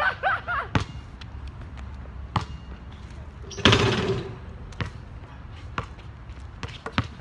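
Basketball bouncing on an outdoor hard court: a few separate single bounces, then quicker dribbles near the end. A little past halfway there is one louder, rattling impact.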